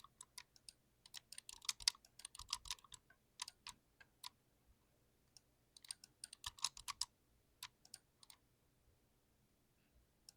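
Mechanical keyboard with linear TTC Red switches being typed on: quick bursts of key clacks with short pauses between, and a longer lull near the end.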